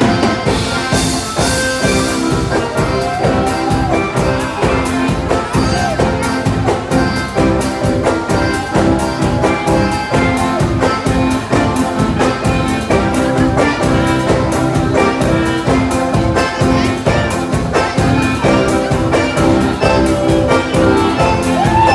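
Dance band playing Gaúcho regional ballroom music with a steady beat and sustained melody notes.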